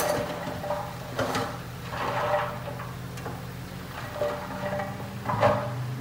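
Dump truck tipping its load: the engine runs with a steady low hum as the bed rises, and soil and rocks slide out and thud onto the pile in several bursts, the loudest near the end.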